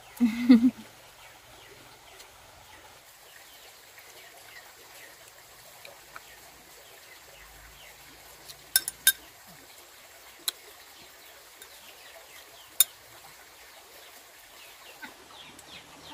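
A short call right at the start, then faint background with small chirps and a few sharp clicks or knocks, a quick pair about nine seconds in and single ones near ten and thirteen seconds.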